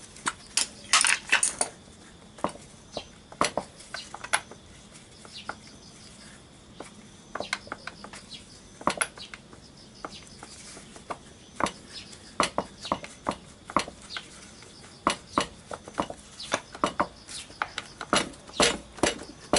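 Metal hand tools clicking and clinking against the bolts of a scooter engine's drive-side cover as a socket wrench with an extension is worked on them: irregular sharp clicks, some in quick runs, busiest in the second half. A fastener is stuck and won't come off.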